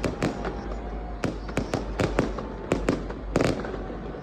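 Fireworks and firecrackers going off in quick, irregular succession: about a dozen sharp bangs and pops in four seconds, some overlapping.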